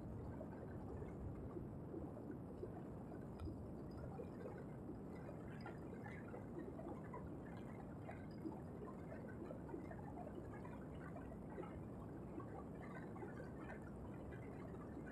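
Muffled wind buffeting on the microphone of a moving vehicle: a faint, steady rumble with an irregular crackle throughout.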